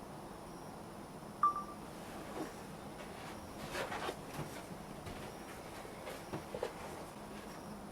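Faint steady hiss broken by a single sharp ping with a brief ring about a second and a half in, then a few light clicks and taps near the middle and near the end.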